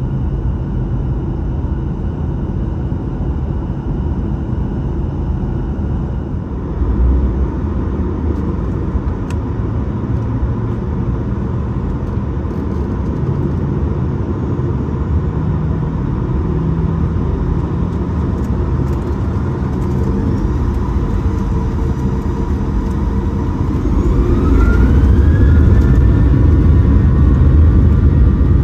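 Boeing 737-900ER's CFM56-7B turbofan engines heard from inside the cabin, a steady hum until, near the end, they spool up to takeoff thrust with a rising whine and a louder rumble as the takeoff roll begins.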